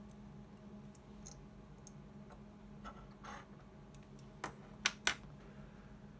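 Small clicks and a short scrape as electrolytic capacitors are handled and their leads are pulled from the input terminals of a handheld LCR meter. Three sharp clicks a little past the middle are the loudest, over a faint steady hum.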